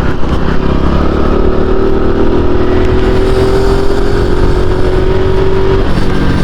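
Honda Pop 110i's single-cylinder four-stroke engine running while riding, its note rising slowly for a few seconds and then dropping away, over steady road noise. It carries the strange front-end vibration noise that the rider suspects comes from a cord tied to the handlebar or a bent front wheel.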